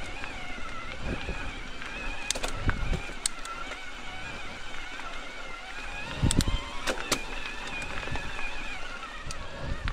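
Mountain bike riding a dirt trail: a steady rumble of tyres and drivetrain, with a faint wavering whine and several sharp knocks from rocks and roots, the clearest about two and a half seconds in and again around six to seven seconds in.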